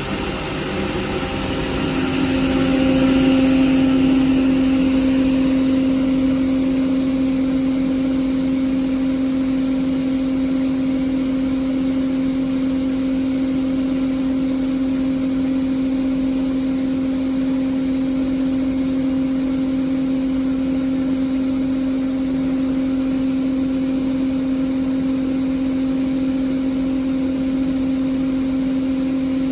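Atlas Copco GA18VSD oil-injected rotary screw air compressor running, a steady hum with one strong constant tone. It swells louder about two seconds in, then holds an even level.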